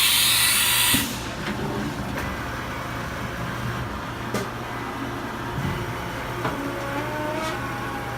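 Haas VF-4 vertical machining center running a program. A loud hissing rush cuts off suddenly about a second in. The spindle and axis drives then run on with a steady hum, a few sharp clicks, and a whine that rises in pitch near the end.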